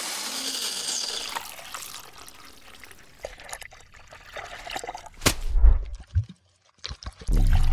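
Close-up foley of coffee beans pouring and rattling into a paper baking cup, a dense patter that fades over about two seconds. Scattered drips and light splashes follow, then a sharp tap with a low thud about five seconds in, a brief silence, and a deep sweeping whoosh that starts near the end.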